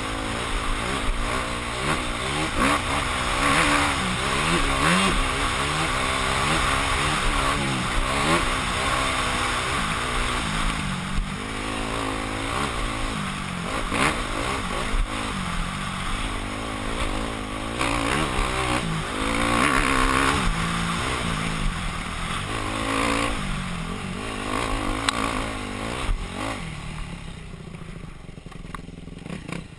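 Yamaha YZ250F dirt bike's four-stroke single-cylinder engine revving hard and easing off again and again as it is ridden over a rough trail, heard from the rider's helmet camera. The engine falls quieter near the end.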